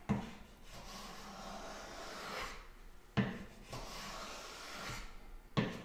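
Wood being handled on a wooden workbench: three sharp wooden knocks, near the start, about three seconds in and near the end, with faint rubbing and scraping between them as a board is set in a bench accessory.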